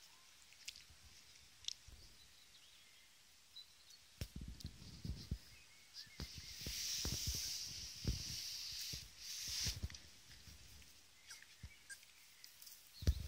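Puppies moving about in grass: soft rustling and light knocks and scrabbling, with a louder hissing rustle for about three seconds in the middle. The first few seconds hold only a faint outdoor hiss.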